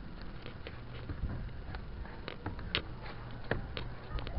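Scattered light taps and knocks, irregular and a second or less apart, from moving over and bumping the wooden boards and posts of a playground structure, over a faint steady low hum.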